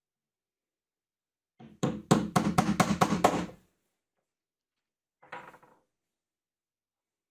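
Quick series of about eight sharp hammer taps, about four a second, on a steel bolt head, driving a hex nut into a plywood disc on a wooden bench; a single softer knock follows a couple of seconds later.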